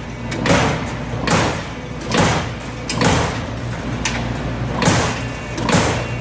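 Amada Aries 245 CNC turret punch press running, with a surge of machine noise repeating a little more than once a second over a steady hum.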